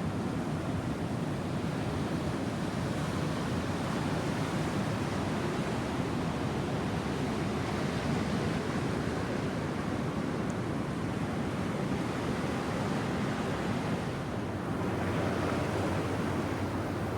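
Ocean surf washing steadily ashore, with wind on the microphone.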